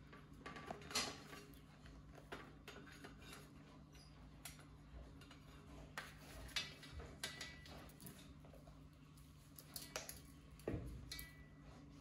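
Scattered light taps and clinks on a metal tray and brass coffee pots as a cockatoo's beak and a fennec fox's paws move over them, with a low steady hum underneath.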